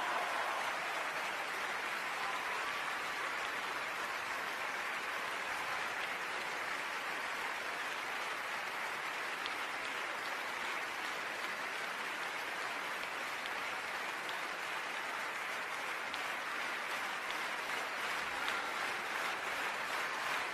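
Theatre audience applauding in a dense, steady ovation. Near the end the clapping begins to fall into a rhythm, about three claps a second.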